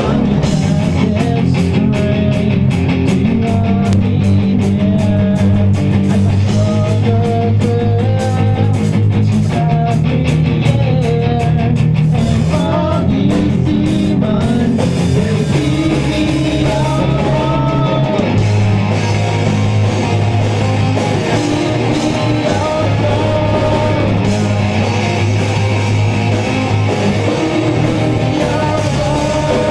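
Live rock band playing a punk-rock cover: electric guitars through Marshall amps, electric bass, a drum kit keeping a fast steady beat, and sung lead vocals.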